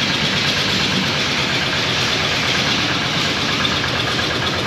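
A vehicle's engine running steadily under a constant, even rush of noise, with no changes in speed.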